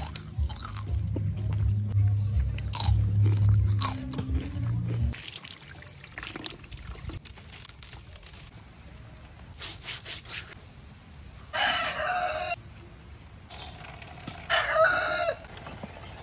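Crispy deep-fried pig's head skin crunching as it is bitten and chewed. After a quieter stretch, a rooster crows twice near the end.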